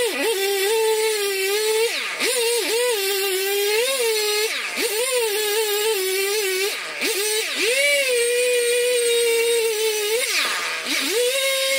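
Husqvarna 55 two-stroke chainsaw cutting up a felled birch. It runs at high revs with the pitch wavering under the load of the cut, and four times it drops briefly toward idle before revving back up.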